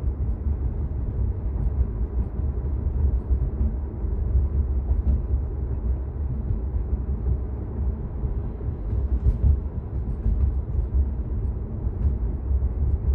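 Steady low rumble of road and tyre noise heard inside the cabin of a Tesla Model 3, an electric car with no engine sound, driving at about 35 mph.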